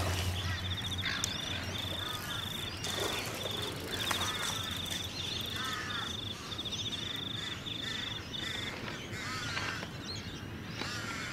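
An insect chirping in short, high-pitched pulsed trains, repeated steadily with brief gaps, and short bird calls scattered over it.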